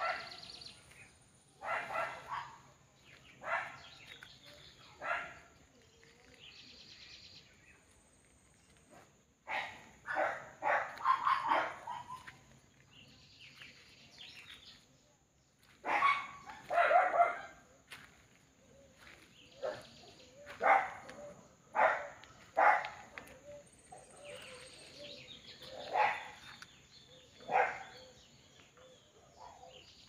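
A dog barking repeatedly: single barks and short runs of barks, with pauses of a few seconds between them.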